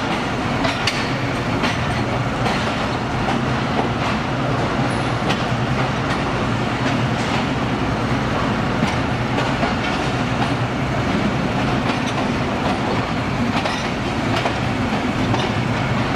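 Train running on its track, a steady rumble of wheels and carriage with a faint clickety-clack over the rail joints, heard from aboard the moving train.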